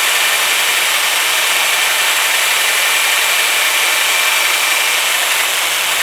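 Electric drill spinning a 3-inch sanding disc against metal: a loud, steady hiss of abrasion with a faint high whine.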